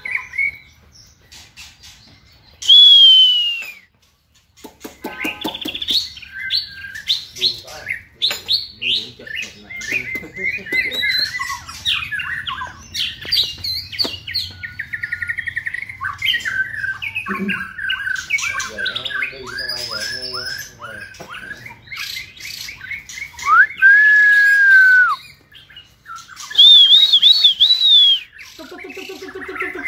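White-rumped shamas singing: a long, varied song of clear whistles, quick runs of notes and chatter. A loud falling whistle comes about three seconds in, a long held whistle comes late on, and a fast warbled phrase comes near the end.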